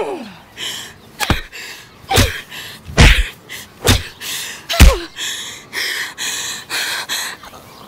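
Five hard punch-like hits about a second apart, two of them with a short falling cry, followed by a woman's rapid gasping breaths, about two a second, as if she is winded from the fight.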